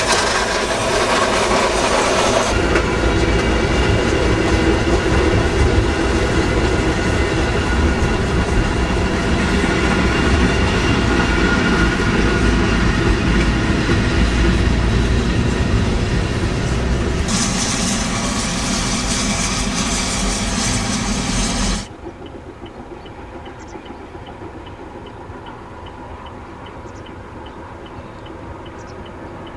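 Steam-hauled train of a Prussian P8 locomotive and five historic coaches rolling past, a loud steady rail noise. About three-quarters of the way through it cuts off suddenly to a much quieter steady noise with faint regular ticks.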